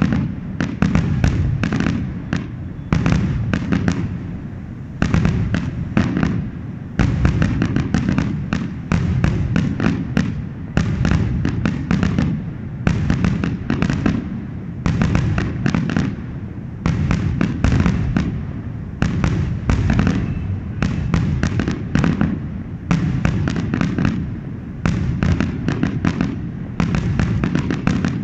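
Aerial fireworks display: shells bursting in rapid, overlapping volleys of bangs and crackles with a deep rolling rumble, continuing without a break.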